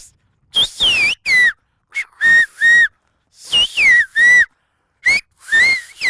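Silbo, the whistled language of the Canary Islands: a person whistling sharp, piercing notes that glide down and up, in about four short phrases with brief pauses between them. These are the signals shepherds use to talk across long distances.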